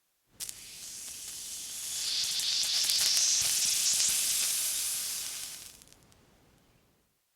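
Water sizzling and hissing: it starts suddenly, swells to a loud high hiss, then dies away over about a second near the end.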